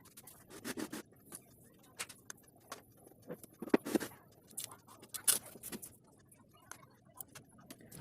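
Irregular small clicks, taps and scrapes of objects being handled, with a few sharper knocks around the middle; no motor running.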